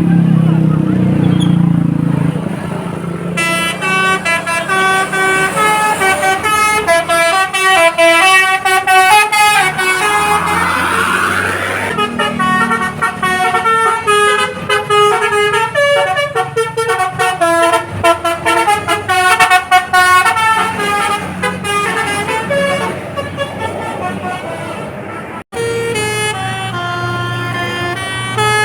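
Bus engine running, then from about three seconds in a basuri multi-tone 'telolet' bus horn plays a long melody of quick stepped notes, with a rising sweep partway through. The horn breaks off briefly near the end and starts again.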